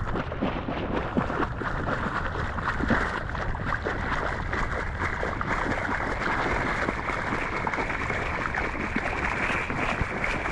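Steady rushing noise of wind and ocean surf, with a fine crackle running through it.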